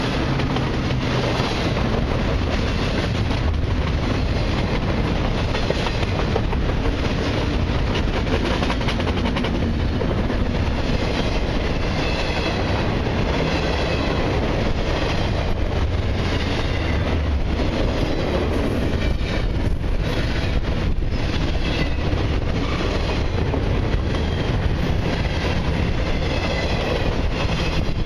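Double-stack container well cars of a long intermodal freight train rolling past close by: a steady, unbroken noise of steel wheels running on the rails.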